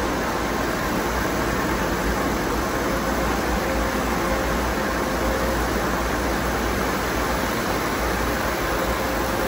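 Tunnel car wash running: spinning foam brushes scrub a soaped car while water sprays, making a steady rushing noise with a faint constant hum underneath.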